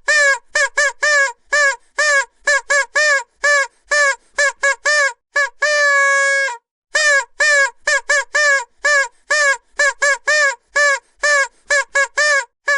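Vuvuzela blown in rapid short toots, about three a second, each note bending slightly in pitch, with one longer held note of about a second a little under halfway through.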